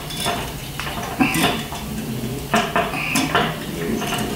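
Winged metal corkscrew being twisted into the cork of a glass wine bottle: a string of metallic clicks and clinks, with a few short squeaks.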